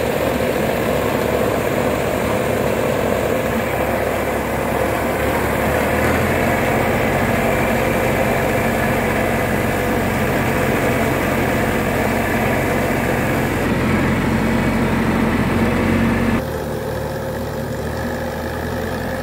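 Kubota B2441 compact tractor's three-cylinder diesel engine and the fan of the blower sprayer it drives, running steadily while spraying, heard up close. About sixteen seconds in the sound suddenly becomes quieter and more distant.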